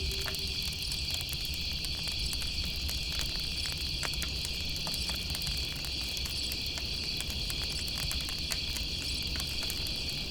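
Steady chorus of crickets trilling, with a campfire crackling in scattered small pops. A low owl hoot trails off in the first moment.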